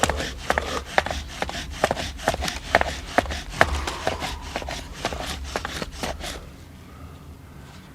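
Wooden bow drill being worked fast: the spindle rubs and knocks in the fireboard in a quick train of strokes, stopping about six seconds in as an ember forms.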